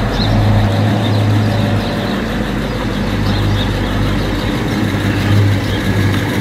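Chevrolet Chevelle SS's V8 running with a steady, low exhaust rumble as the car rolls slowly past.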